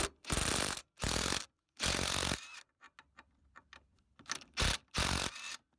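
Cordless impact driver hammering bolts loose in five short bursts of about half a second each: three close together, then two more near the end.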